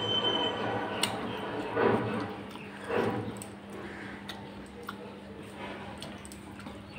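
Eating by hand: fingers squishing rice into curry gravy on a steel plate, with chewing and a few small clicks.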